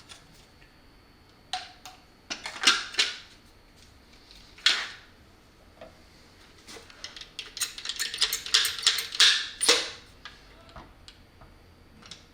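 Small parts and tools handled on a workbench: scattered clicks and knocks, with a quick run of clicking for a few seconds near the end.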